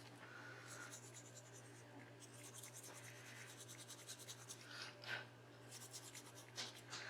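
Soft pastel being rubbed onto paper orchid petals: faint, rapid scratchy strokes, busiest in the middle, over a steady low hum.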